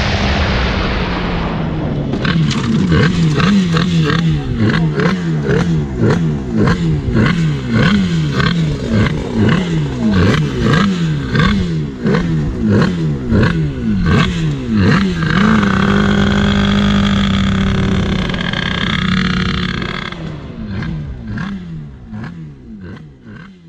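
Twin-cylinder 204cc two-stroke drag-scooter engine being blipped over and over, its pitch rising and falling a little more than once a second, with a rush of wind at the start as the bike slows. Near the end it runs steadier for a few seconds, is blipped a few more times, and fades out.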